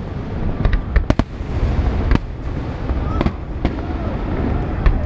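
Fireworks exploding: several sharp bangs at irregular intervals over a continuous low rumble of further bursts.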